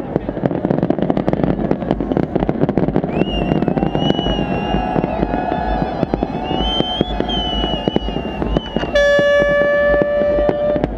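Fireworks bursting and crackling in rapid, continuous bangs. A high, wavering whistle sounds through the middle, and near the end a steady horn blast holds for about two seconds.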